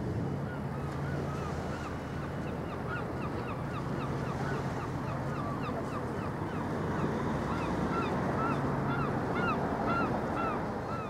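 A flock of geese honking: many short calls in quick succession, over a steady low hum.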